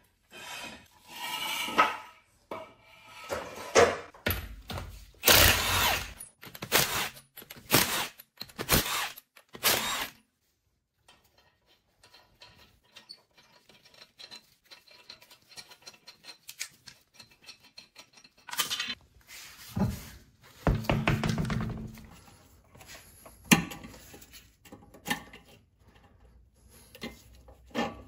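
Metal hand tools and sockets being handled and set down: a run of separate clinks and knocks, with a gap of near silence in the middle and another short cluster of clatter later.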